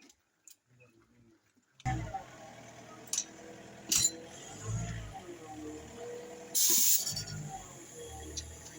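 Near silence, then a steady machine hum starts about two seconds in, with a few sharp clicks and a short burst of hiss about halfway through.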